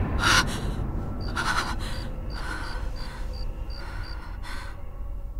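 A woman breathing hard in short gasps after waking with a start, about one breath a second. A cricket chirps steadily in the background.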